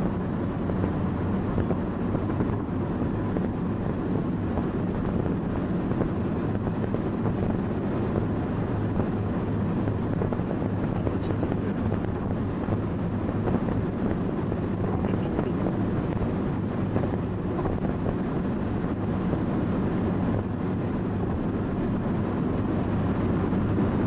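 Steady engine and road noise inside a moving car's cabin: a low, even hum with tyre and wind rush.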